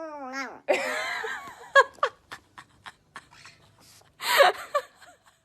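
A cat's long drawn-out meow that falls away about half a second in, followed by a person laughing in short breathy bursts.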